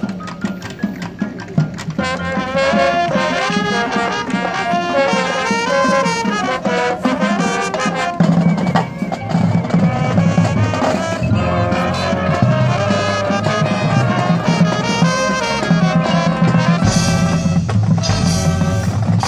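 High school marching band playing its field show: brass carrying a moving melody over drums and percussion, the low end filling out about eight seconds in.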